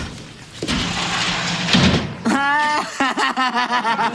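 Studio audience laughing, then a boy's voice in a held note followed by quick rhythmic laughing pulses, a mocking chuckle.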